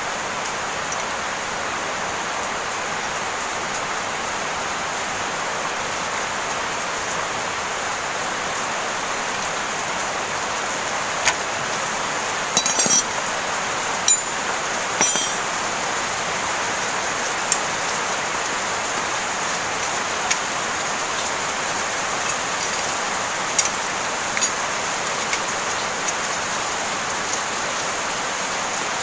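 Heavy rain hissing steadily throughout. From about ten seconds in come several short, scattered metal clinks of a hand tool against a motorcycle disc brake caliper.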